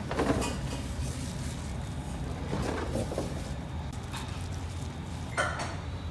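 Kitchen handling sounds: a plastic crate knocked and slid out of a rack, then scattered knocks and clinks of steel tongs, tray and a stainless steel container lid, the sharpest clink near the end. A steady low hum runs underneath.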